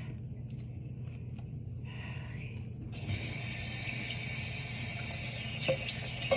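Sink faucet turned on about three seconds in, its water running steadily into the sink to rinse a washed lid.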